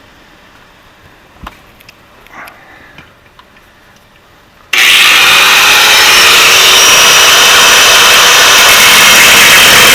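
A few faint clicks of handling, then about halfway through a cut-off wheel starts suddenly and runs loud and steady with a high grinding hiss as it cuts into sheet metal, its pitch dropping slightly as it bites in.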